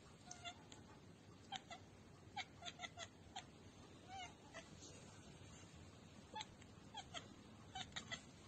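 A cat making a string of short, faint calls, over a dozen in all, spaced irregularly.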